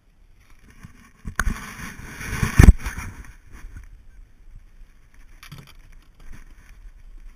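Knocking and rustling close to the microphone, like the camera being bumped or handled on the boat: a sharp knock about a second and a half in, a loud scraping rush with the loudest knock just before the three-second mark, then scattered small taps.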